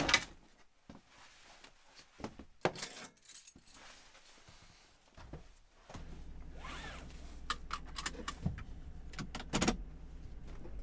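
Keys jangling, with small clicks and knocks of handling. About six seconds in, a van engine's steady low idle hum starts in the cab, with a seatbelt pulled out and buckled over it.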